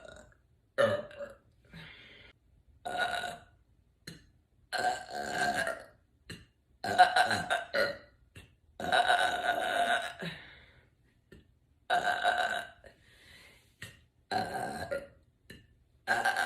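A woman belching over and over: about eight loud burps with short pauses between them and a couple of fainter ones, the longest drawn out for a second or more.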